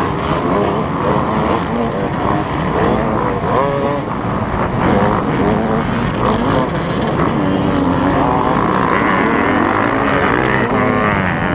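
Yamaha YZ125 two-stroke motocross bike racing in a pack, heard from a helmet-mounted camera: its engine revs rise and fall again and again as the rider accelerates and shifts, over the din of the other dirt bikes' engines.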